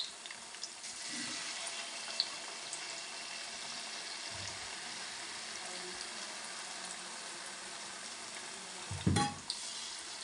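Chopped onions and sliced green chillies sizzling steadily in hot oil in a pan, with one short knock about nine seconds in.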